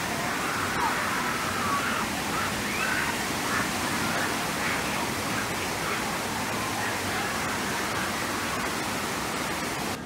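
Steady rush of splashing water on a river rapids raft ride, with faint voices in the background.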